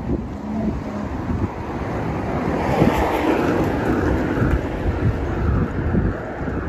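A small hatchback car passes close by and drives off ahead, its tyre and engine noise swelling to a peak about three seconds in and then easing off. Wind buffets the microphone.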